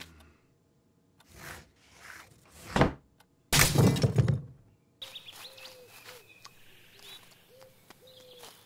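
Cartoon sound effects: a rising swish ending in a thud, then about a second later a loud crash like something breaking. After that, birds chirp over a quiet outdoor background.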